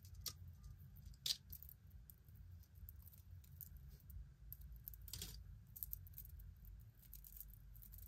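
Faint clinks and taps of thin metal hoop earrings being handled and pulled apart, with a sharper click a little over a second in and another about five seconds in, over a low steady hum.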